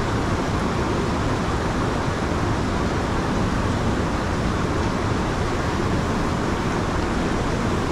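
River current rushing steadily, an even noise with no separate splashes standing out.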